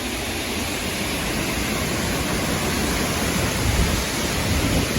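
Steady rushing noise of gusty storm wind, with gusts buffeting the phone's microphone.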